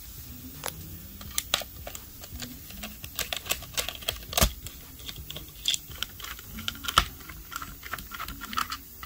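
Irregular small metallic clicks and taps of a precision screwdriver working out the battery screws in a laptop's plastic chassis, with two sharper knocks about four and seven seconds in.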